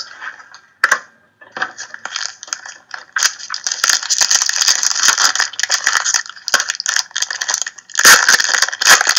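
Crinkly rustling and crackling of trading-card packs and cards being handled and torn open, a dense patter of small clicks that starts after a short quiet gap and grows loudest near the end.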